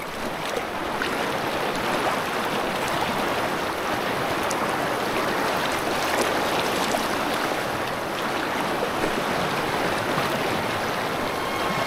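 Fast alpine river water rushing steadily over riffles, heard from close to the surface. The rush swells in over the first second, then holds steady.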